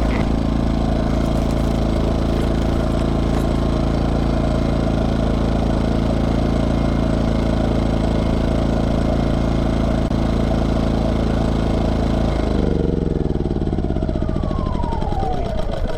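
Craftsman 2200i inverter generator's small engine running at a steady speed, then stopping about three-quarters of the way through and winding down with a falling pitch over the last few seconds.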